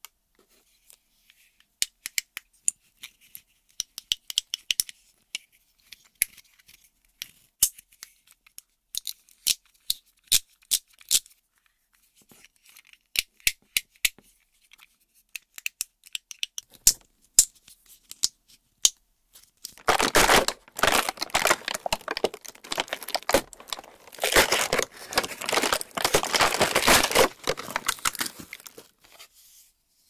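Sharp, separate plastic clicks from small fidget toys being handled, including the buttons of a controller-shaped fidget pad being pressed. About twenty seconds in the clicks give way to a long, louder stretch of packaging tearing and crinkling as the next toy is opened.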